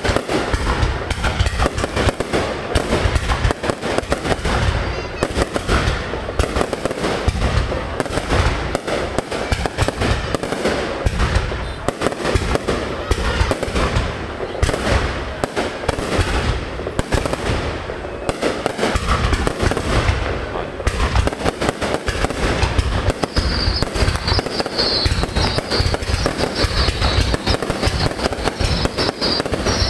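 Aerial fireworks display going off in a dense, continuous barrage of bangs and crackles. About two-thirds of the way in, a high, wavering whistle joins in.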